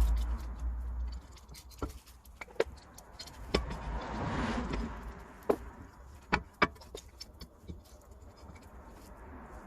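Scattered metallic clinks and knocks of hand tools and brake parts being handled while a new front brake disc and pads are fitted, with a low rumble in the first second.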